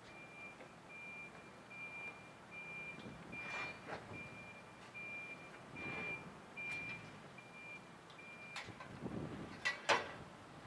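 A vehicle's reversing alarm beeping steadily at a little under two beeps a second, stopping a couple of seconds before the end. A few metallic clanks come through with it, the sharpest near the end.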